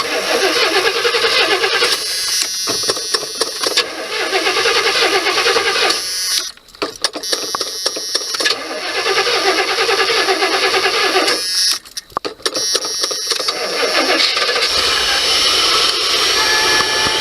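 A van's starter cranking the engine in three long tries with two short pauses between them, the battery helped by a charger. Near the end the engine catches and keeps running.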